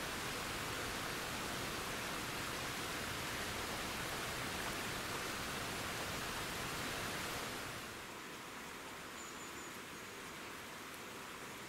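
Steady outdoor hiss with no bell or train, dropping to a quieter hiss about eight seconds in.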